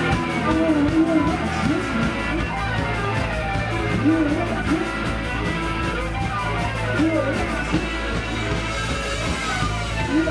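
Live rock band playing: electric guitar and sung vocals over a drum kit.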